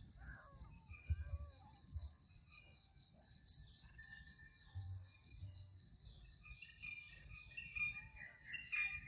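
Insect chirping high and fast in an even pulse, about six chirps a second, breaking off briefly about six seconds in. A few faint short calls come through underneath.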